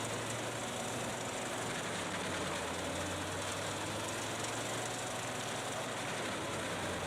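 A heavy machine's engine running steadily under a constant noise, with no distinct strikes or changes.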